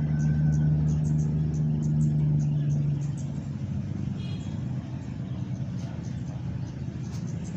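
A motor engine hums steadily, then fades away about three seconds in, leaving a low rushing background.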